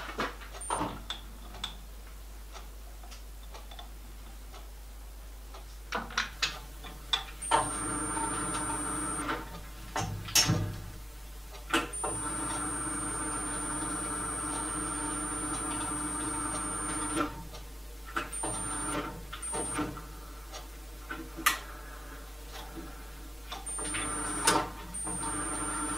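Small metal lathe motor running in several short runs with a steady hum and a thin high whine, starting and stopping while a die cuts a thread on the end of a stainless steel piston rod. Sharp clicks and knocks of handling the machine come between the runs.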